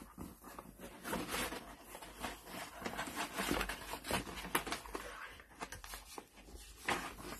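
A dog nosing through an opened cardboard box of toys and plastic-wrapped treats: irregular rustling, crinkling and scraping of packaging and cardboard.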